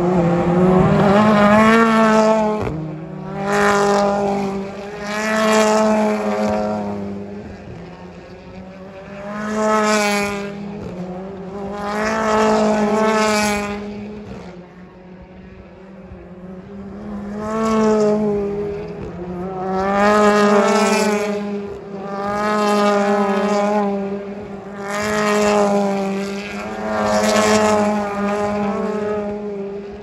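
Turbocharged British Touring Car Championship race cars passing one after another through a chicane, with about a dozen engine passes, each swelling and fading with its revs rising and falling.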